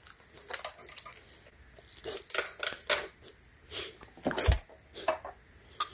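Scattered clicks, taps and rustles of hands handling an e-bike's battery pack and its wiring in the plastic frame compartment, with a dull thump about four and a half seconds in.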